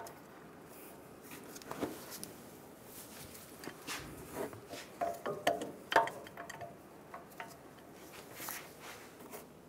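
Ratchet and socket wrench working on the brake caliper bracket bolts: scattered metal clicks and clinks as the 18 mm socket is fitted and the bolts are turned, with a sharper knock about six seconds in.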